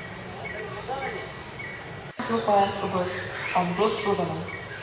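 Tropical forest ambience: a steady high-pitched insect drone, with a short chirp repeating about twice a second. From about two seconds in, louder calls with sliding pitch come in over it.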